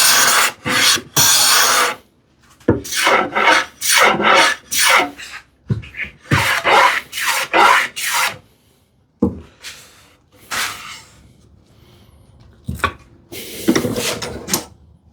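Hand plane taking repeated strokes along the edge of a Baltic birch plywood panel, each stroke a short rasping swish, in runs of several strokes with brief pauses and lighter strokes in the second half. The dense plywood is hard on the plane and is dulling its iron.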